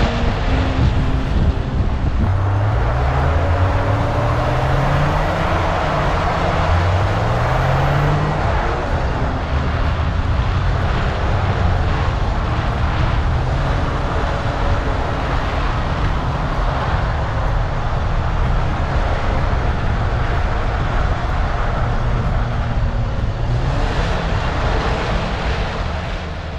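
BMW 318's four-cylinder engine, heard from a camera mounted behind the car as it drifts on ice. The revs climb again and again in the first third, then the engine holds a steadier note under a constant rush of noise.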